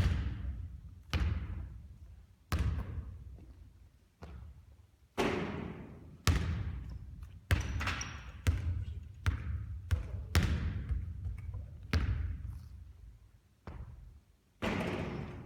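A basketball bouncing, about a dozen sharp bounces roughly a second apart, each with an echoing tail that dies away.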